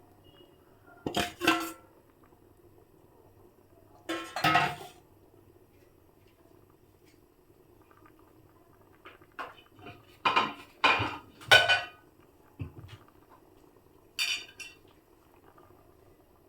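Metal utensils clinking and scraping against a cooking pot in short bursts: a few separate clusters of clinks, with the loudest, densest run about ten to twelve seconds in.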